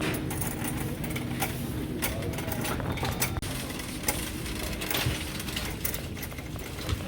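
Store ambience: a steady low hum with scattered clicks and rattles throughout.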